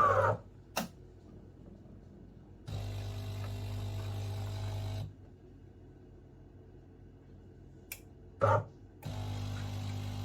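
De'Longhi Dinamica Plus bean-to-cup espresso machine brewing. A motor winds down at the very start. Then the pump hums steadily for about two seconds, goes quiet apart from a few clicks, and starts humming again about nine seconds in.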